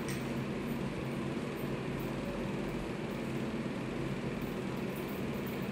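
Steady low mechanical hum of background room noise, even throughout.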